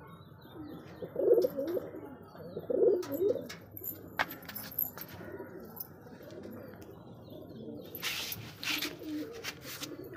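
Black domestic pigeons cooing, with two loud coos about one and three seconds in and fainter cooing after.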